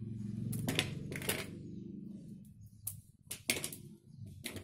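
Crisp, set peanut-jaggery chikki pieces being broken apart by hand and lifted off a steel plate: a scattered series of about seven sharp clicks and cracks. A low steady hum underneath fades out about halfway through.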